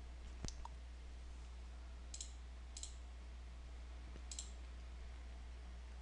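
A few computer mouse clicks, four in all, spread over several seconds, over a steady low hum.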